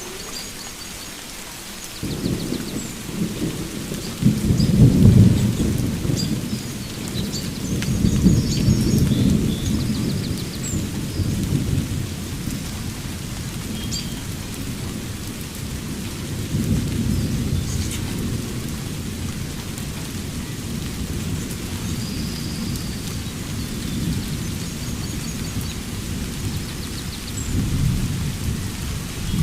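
Rolling thunder over steady rain: the rumble starts about two seconds in, is loudest a few seconds later and keeps rolling in waves. Short bird chirps come now and then above the rain.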